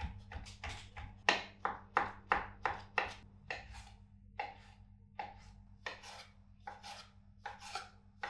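Chef's knife slicing salami into thin strips on an end-grain wooden cutting board: a steady run of knife strokes against the wood, about three a second, loudest in the first half and a little softer and slower in the second.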